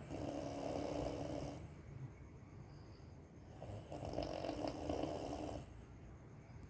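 A woman snoring in deep sleep: two long, loud snores, each about one and a half to two seconds, about three and a half seconds apart, with quieter breathing between.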